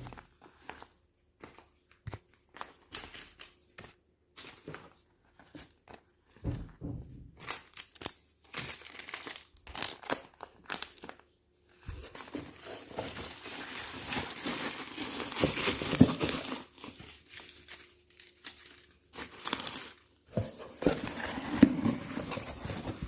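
Plastic packaging crinkling and rustling as an order is wrapped, in scattered short rustles at first, then denser and louder handling from about halfway, with bits of tearing.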